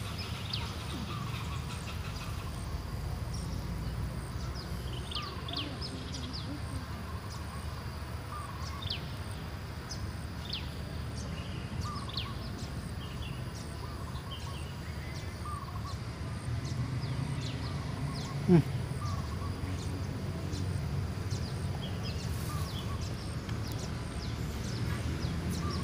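Outdoor ambience: a steady low rumble with small birds chirping now and then in short, quick calls. One brief louder blip comes about eighteen seconds in.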